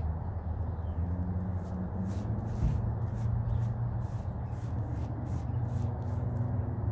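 A paintbrush stroking paint along a wooden fence board, soft repeated brushing at about two to three strokes a second, over a steady low rumble.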